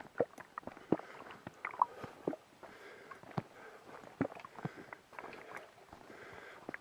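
Footsteps walking along a dirt forest trail, with irregular small knocks and clicks at an uneven pace.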